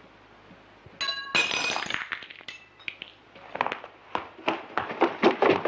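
A sudden glassy crash and clink about a second in, ringing briefly with several tones, another clink a little later, then a run of sharp clicks and knocks coming quicker toward the end.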